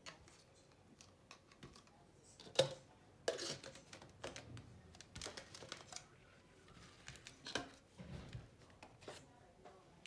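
Hands handling small objects on a worktable: a scattered series of short clicks, taps and rustles, the loudest about two and a half seconds in.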